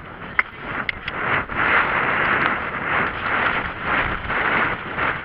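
Wind buffeting a rider-mounted camera microphone as the horse moves off across the field, a rushing noise that swells and fades about twice a second. A few sharp clicks come in the first second.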